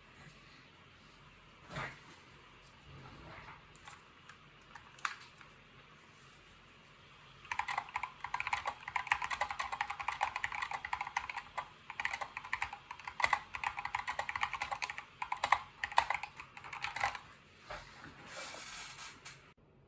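Fast typing on a mechanical keyboard: a dense run of rapid key clacks that starts about seven seconds in and stops abruptly near the end, after a few scattered single clicks and knocks.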